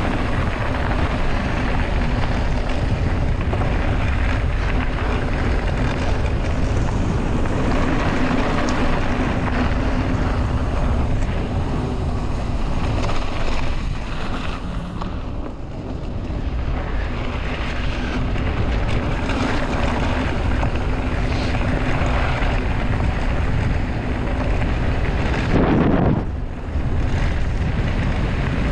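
Wind rushing over the microphone of a camera carried on a moving mountain bike, a continuous loud rumbling noise, with a brief louder bump near the end.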